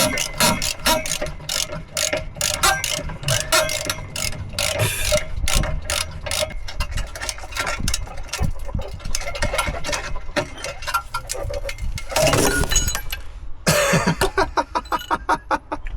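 Ratchet spanner clicking in rapid strokes on a rusted exhaust fitting, with a louder rasping scrape about twelve seconds in.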